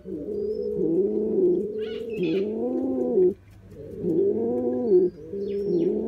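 Domestic pigeon cooing: a run of low, rolling coos that rise and fall in pitch, with a short pause a little over halfway through before the cooing starts again.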